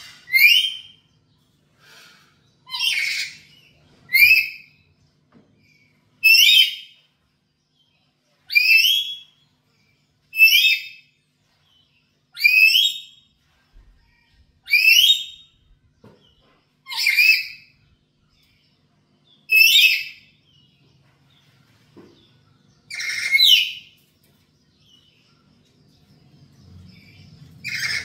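Black-capped lory (Lorius lory) giving loud, shrill calls that each sweep upward in pitch, about a dozen of them, spaced roughly two seconds apart.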